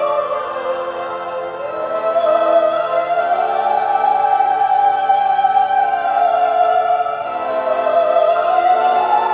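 Orchestral film score: a high sung line holds long notes that climb slowly, over sustained low chords that change every few seconds.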